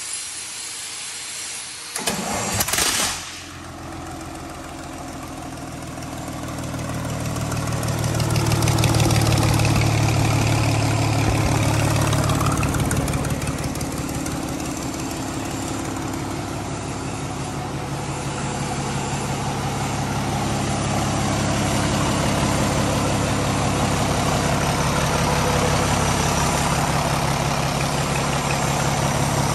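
Mercedes-Benz inline diesel engine of a freshly overhauled 250 kVA generator set starting: a short burst of cranking about two seconds in, then the engine catches, builds up speed over several seconds and settles into a steady run.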